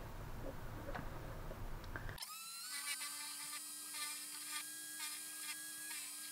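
Small lathe spindle driven by a 100 W sewing-machine motor, starting about two seconds in with a short rising whine and then running steadily with a thin, high whine. A few faint clicks come before it starts.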